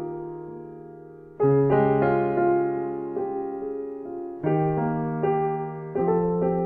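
Slow solo piano background music: sustained chords that are struck and then fade away, with new chords about a second and a half in and twice more near the end.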